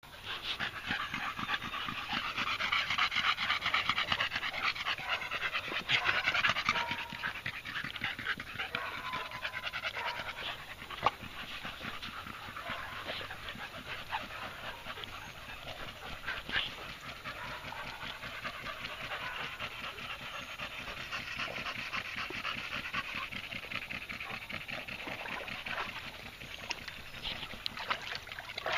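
Blue-nose American bully dogs panting fast and steadily, loudest in the first several seconds, with a couple of sharp knocks.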